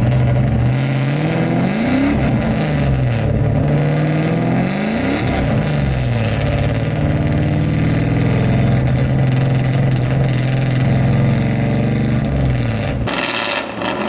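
Swapped 6.2 L LS3 V8 in a Mazda Miata, heard from inside the cabin. It revs up and falls back twice, then holds a steady note while cruising. The engine note drops away suddenly about a second before the end.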